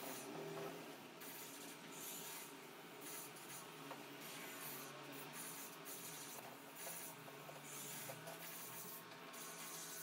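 Paintbrush rubbing across a canvas in a series of short, irregular strokes.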